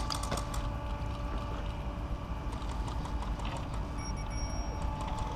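A steady machine hum with several faint steady tones, and a few faint sharp clicks scattered through the middle.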